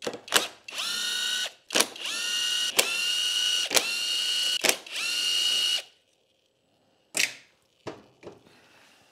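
Cordless drill spinning the clutch pressure-plate bolts out of a two-stroke motorcycle engine: five short runs, each quickly rising to a steady whine, with sharp clicks between them, then one brief run near the end.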